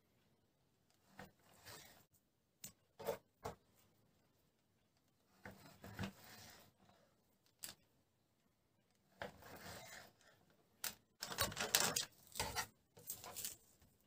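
Kitchen knife cutting raw pork belly into chunks on a plastic cutting board: irregular short scrapes and sharp taps of the blade on the board, with the meat being handled and set down. The busiest, loudest stretch of scraping and knocks comes about eleven to thirteen seconds in.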